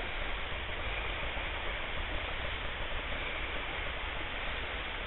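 Shallow trout-stream riffle running, a steady even rush of flowing water.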